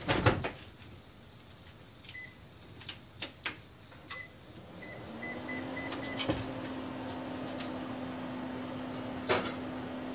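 Microwave oven keypad beeping as buttons are pressed: a few single beeps, then a quick run of them. The oven then starts, a steady hum rising in about halfway through, with a couple of clicks and knocks.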